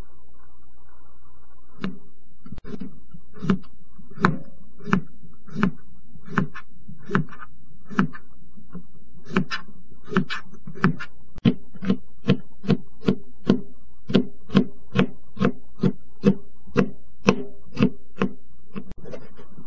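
Kitchen knife slicing a cucumber on a plastic cutting board: regular chopping strokes, starting about two seconds in at about one and a half a second and quickening to about two a second after the middle. A steady low hum runs underneath.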